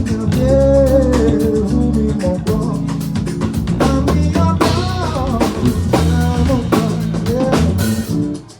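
A song: music with guitar, drums and a sung voice.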